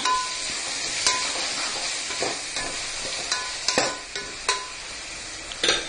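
Chopped tomatoes and onions sizzling in hot oil and ghee in a pressure cooker pot, stirred with a steel spoon that scrapes and knocks sharply against the pot a few times.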